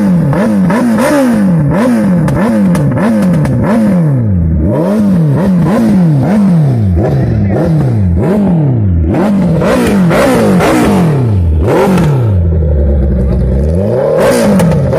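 Suzuki Hayabusa's inline-four engine revved over and over through its stock exhaust while the bike stands still: quick throttle blips, each one climbing and dropping back, about two a second. Near the end it settles briefly to idle, then revs again.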